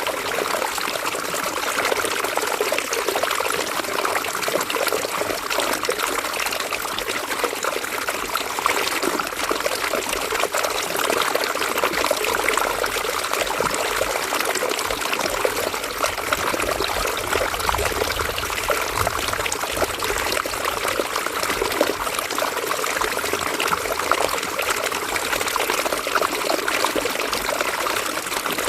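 A shallow river or stream running steadily, water trickling and splashing over stones in a dense, even babble.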